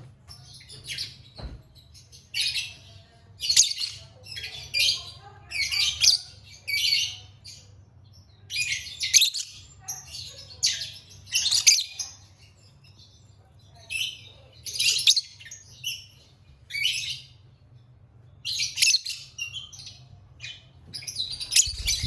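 Lovebird giving bursts of high-pitched chirps and chattering calls, in runs about a second apart with a short pause in the middle.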